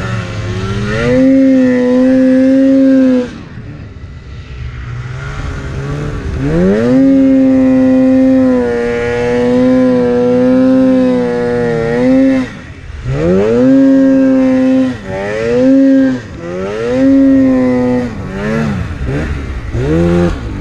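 Polaris Axys RMK 800 snowmobile's two-stroke twin engine revving up and holding at high revs under load in deep snow. It drops off about three seconds in and pulls again from about six to twelve seconds. In the last third it runs in a series of shorter bursts of throttle, rising and falling.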